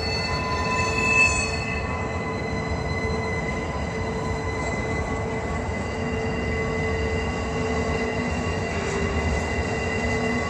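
Norfolk Southern double-stack intermodal freight train rolling past, a continuous wheel-and-car rumble with steady high squealing tones from brakes still applied and dragging on the cars. A short louder squeal comes about a second in.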